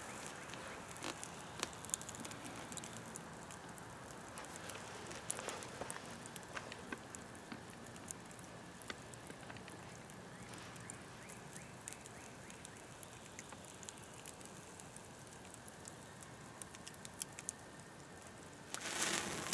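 Faint crackling and ticking from a campfire's bed of coals, with fat dripping off roasting duck meat and sizzling on the embers; it grows louder near the end.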